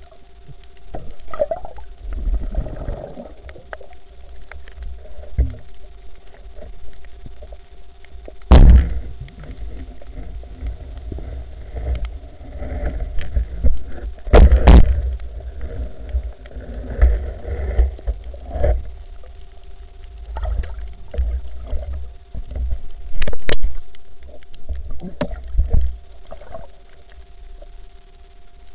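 Underwater camera audio while a speargun is carried over a reef: muffled low rumbling and bumping of water movement, with a faint steady hum. Several sharp knocks stand out: one about a third of the way in, two close together around the middle, and two more near the end.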